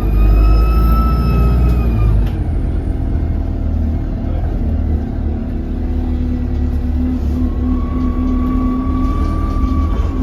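Diesel engine of an Alexander Dennis Enviro200 bus heard from inside, running under load with a high turbo whistle over the low engine rumble. About two seconds in the power drops off and the whistle stops; it returns near the end, falling slowly in pitch. The whistle is what the uploader puts down to a turbo leak.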